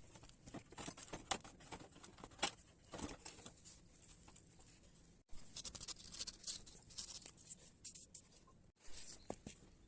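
Scattered light metallic clicks and taps of hand tools on a scooter's muffler bolts as they are undone.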